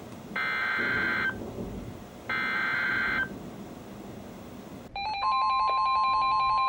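NOAA Weather Radio Emergency Alert System header: the last two of three identical buzzy digital data bursts, each about a second long and a second apart, opening a Special Marine Warning. About five seconds in, a loud steady alert tone starts on the weather radios, with faster beeping mixed in.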